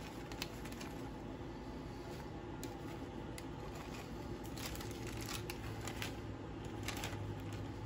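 Plastic cake-mix bag crinkling in short, scattered rustles as dry cake mix is shaken out of it, over a faint steady hum.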